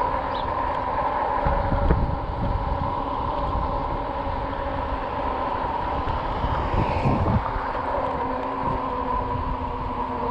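RadRover electric bike's rear hub motor running with a steady whine under way, with wind buffeting the microphone in gusts, most strongly about two seconds in and about seven seconds in.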